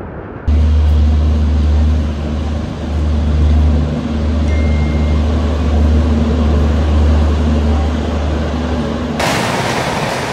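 A steady, loud, low mechanical hum with a few held low tones, starting abruptly about half a second in. Near the end it gives way suddenly to a louder, even rushing noise.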